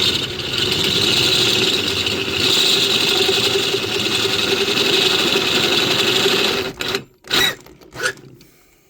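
A small electric power tool runs steadily with a constant hum and a high whine for about seven seconds, then stops abruptly, followed by two brief blips.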